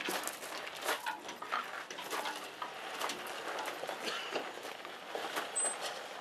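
A lawn tractor tipped on its side and manhandled sideways: a string of irregular knocks, clunks and scrapes from its body and wheels, with shoes shuffling and crunching on gravel.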